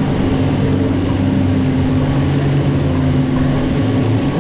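Outboard engines of a SeaVee 32 center-console running steadily under way at trolling speed, a constant engine drone over a rushing noise.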